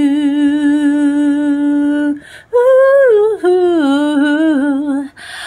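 A woman's solo voice, unaccompanied: she holds a long sung note with a slight vibrato, takes a breath about two seconds in, then hums a wavering line of the melody.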